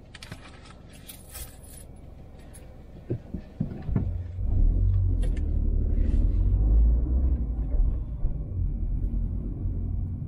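Road noise inside a moving car: light rattles and jingles at first, a few thumps around three to four seconds in, then a loud, steady low rumble that carries on.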